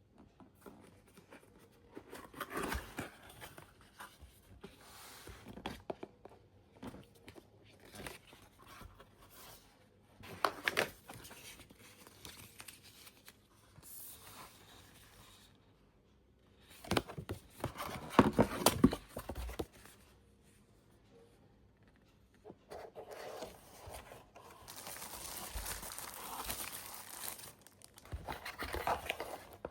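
Unboxing packaging being handled: paper and plastic wrapping tearing and crinkling, with scrapes and sharp knocks from the box and its contents. It comes in irregular bursts with short pauses, busiest about two-thirds of the way through, then a steadier rustle near the end.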